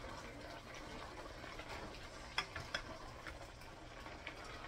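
A spoon stirring cabbage in a steaming metal pot, with several light clicks of the spoon against the pot over a faint simmer. The cabbage is steaming in its own water.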